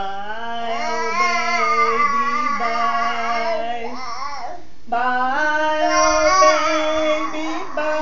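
A baby and his grandmother singing together in long, held notes that slide up and down in pitch, in two phrases with a brief break a little past halfway.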